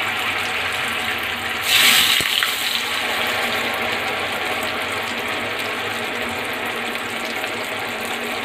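Batter-coated fish pieces deep-frying in hot oil in a steel kadai: a loud, steady sizzle of bubbling oil, with a brief louder surge of sizzling about two seconds in.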